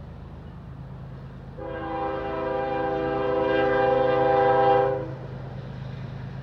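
Air horn of an approaching Norfolk Southern diesel locomotive, blown for the grade crossing: one long chord of several notes starting about a second and a half in, growing louder, then cutting off about five seconds in, over a low steady rumble.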